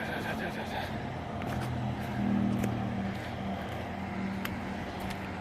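A vehicle engine running steadily as a low hum that swells briefly about two seconds in and then settles.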